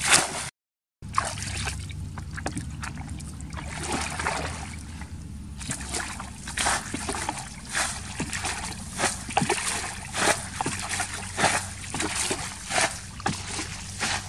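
Plastic bucket scooping and sloshing muddy water in a shallow pool, giving irregular splashes. The splashes come louder and faster, about one or two a second, in the second half.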